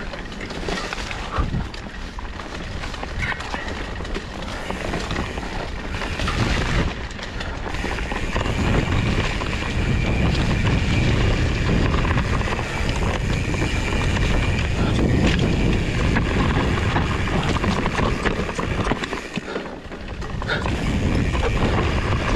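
Fat bike riding along a trail: tyres rolling over the ground under steady wind rumble on the microphone, getting louder about eight seconds in.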